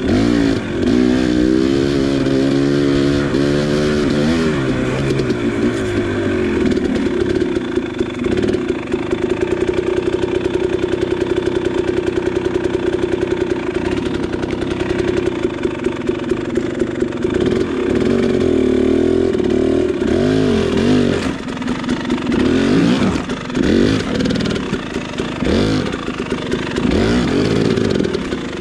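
KTM 300 XC dirt bike's single-cylinder two-stroke engine being ridden, the revs rising and falling with the throttle. The engine runs fairly steadily through the middle, then the throttle is opened and closed in repeated short bursts near the end.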